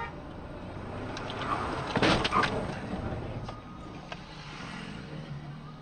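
Car driving noise picked up by a dashcam inside the car, with a louder, noisy surge about two seconds in that lasts about half a second.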